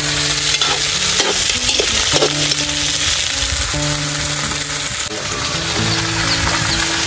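Whole mud crabs sizzling in hot oil in a large metal wok, stirred and turned with a metal spatula that scrapes against the pan now and then.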